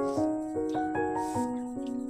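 Background keyboard music, piano-like: a melody of held notes over chords, changing pitch a few times a second.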